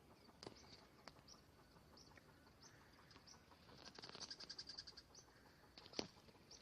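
Faint bird calls: short high chirps repeating about every half second, then a quick run of chirps about four seconds in. A single sharp click near the end.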